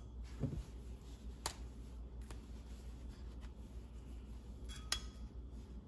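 Faint, scattered light clicks and taps of tools and metal bar stock being handled while the cut length is measured, including a soft thump early on and a click near the end with a brief metallic ring.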